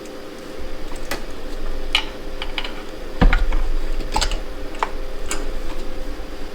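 Scattered light metal clicks and clinks of a socket and extensions being fitted together and worked onto a spark plug in an engine bay, over a steady low hum that gets louder about three seconds in.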